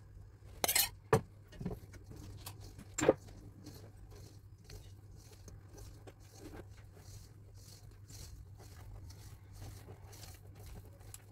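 Hand whisk stirring thick cake batter in a bowl, in a circular motion. A few sharp clicks of a spoon and whisk against the bowl come in the first three seconds, then soft repeated scraping strokes over a faint steady low hum.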